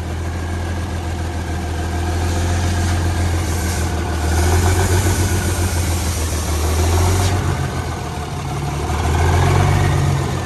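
Diesel engine of a Plymouth switcher locomotive running steadily, its sound swelling and easing several times as a board is held over the air intake to starve it of air and stop it. The board is not sealing the intake, so the engine keeps running.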